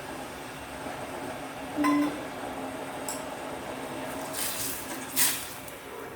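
Tamarind juice being added to a pot of rasam: a short ringing clink of a vessel against the cooking pot about two seconds in, then a brief splash-like rush near five seconds, over a faint steady hiss.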